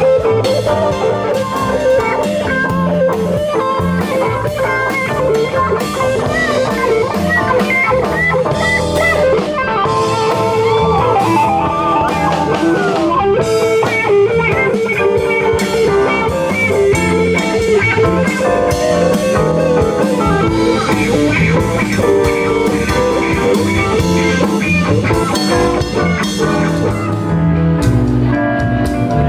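Live band playing an instrumental passage with no vocals: guitars to the fore over bass and drum kit, with a few bent, sliding notes around the middle.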